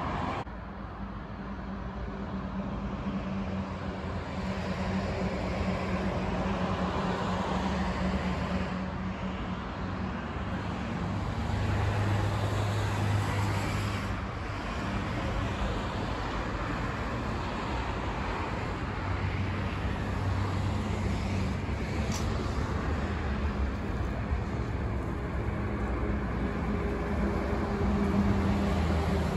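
Road traffic noise, a steady wash of passing cars that gently swells and fades.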